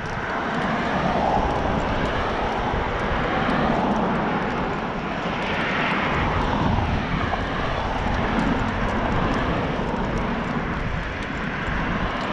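Steady rush of wind over the microphone mixed with the rolling hum of a fat-tire bike's knobby tyres on a concrete sidewalk as the bike rides along.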